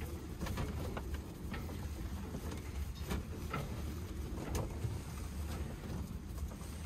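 Scattered light knocks and clicks of hands and tools working at a small boat's diesel in its engine compartment, over a steady low rumble.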